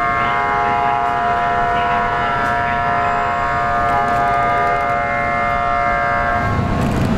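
An approaching NYC Subway train gives a long, steady multi-tone squeal that holds one pitch and stops about six and a half seconds in. A low rumble takes over near the end.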